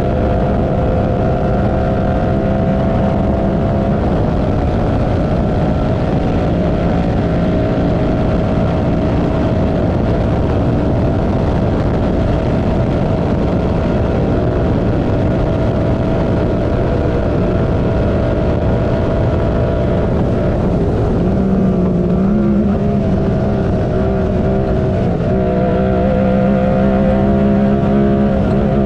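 Honda Talon UTV's parallel-twin engine running hard at a fairly steady pitch over a steady rush of noise. After about twenty seconds the pitch shifts and wavers.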